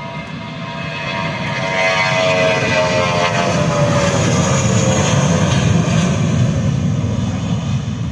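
Airbus A320-232 jet airliner's IAE V2500 turbofans at take-off power during the take-off roll, passing by. The engine whine slides down in pitch as it goes past, over a deep rumble that grows loud and holds as the aircraft rotates to lift off near the end.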